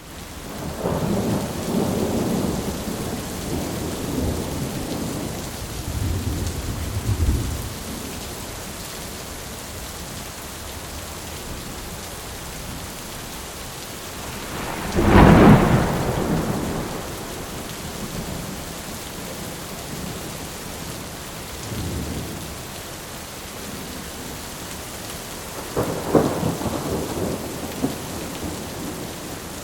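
Thunderstorm: steady rain falling, with rolling thunder. Rumbles run through the first several seconds, the loudest thunderclap comes about halfway, and further rumbles follow later on.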